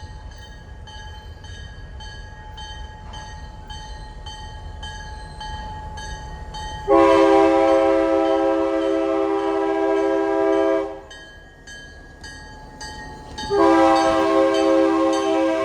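A diesel locomotive's multi-chime air horn blows two long blasts, the first lasting about four seconds and the second starting near the end, over a bell ringing steadily about twice a second.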